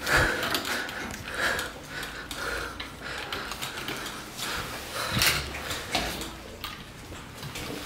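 Handling noise from metal cat-food bowls: soft scrapes and clinks, with one sharp metallic knock about five seconds in as a bowl is set down on the floor.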